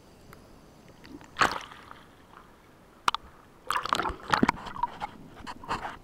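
Underwater water noise picked up by a mask-mounted action camera while freediving: scattered clicks and crackles, a short whoosh, and a burst of gurgling and sloshing in the second half.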